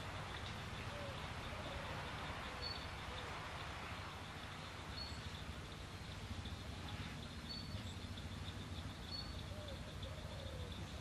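Faint outdoor ambience. A short, high bird chirp repeats every two to three seconds over a steady background hiss and a faint, steady high-pitched buzz.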